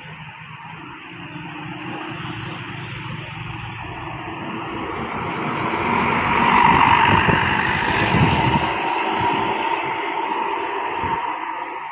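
A bus driving past on the road. Its engine and tyre noise build to a peak about six to seven seconds in, then fade away.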